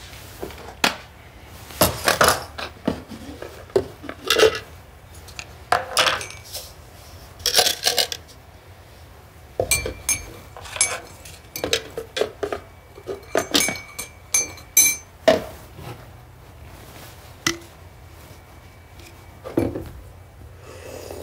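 Irregular clinks and clatters of hard objects, with short ringing after some of them. A faint held ringing tone runs between about ten and fifteen seconds in, and the clatter thins out near the end.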